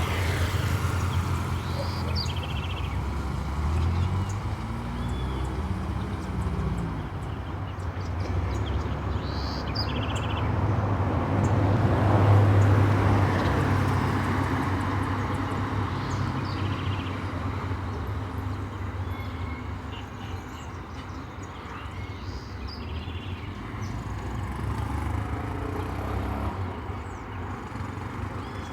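Street traffic with an engine hum that swells as a vehicle passes about twelve seconds in, and birds chirping briefly several times.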